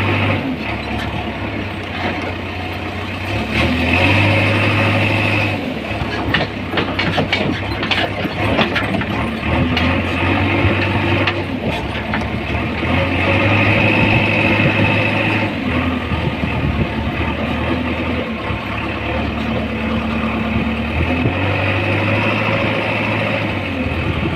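JCB 3DX backhoe loader's diesel engine running, its pitch rising and falling every few seconds as the engine takes and sheds hydraulic load. A run of sharp knocks and clatter comes in about six to nine seconds in.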